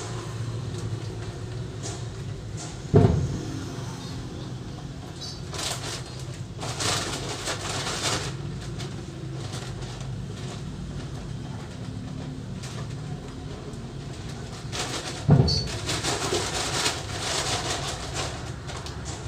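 Loose cement poured from a bucket through a funnel into a bag: a rushing hiss lasting a couple of seconds, twice, each time a little after a sharp thud.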